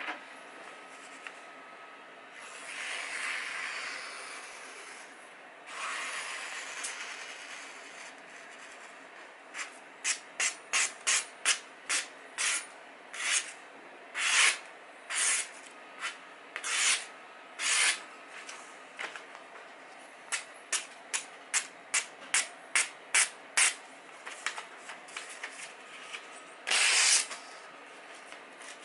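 Freshly sharpened knife blade slicing through sheets of glossy magazine paper to test the edge: a series of short, crisp slicing hisses, about two a second, with a longer, louder cut near the end. Two longer paper rustles come before the cuts begin.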